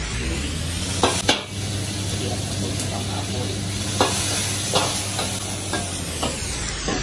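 Stir-fry sizzling hard in a wok over high heat, with a metal ladle clanking against the wok about eight times as the food is tossed and stirred.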